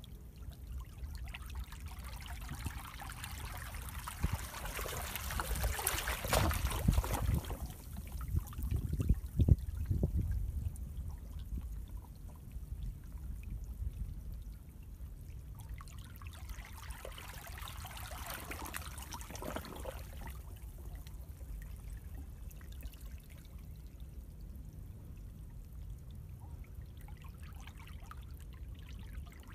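Seawater flowing and trickling through a narrow channel between rocks on a rocky shore, over a steady low rumble. The rushing grows louder in two surges, about five to ten seconds in and again around seventeen to twenty seconds in.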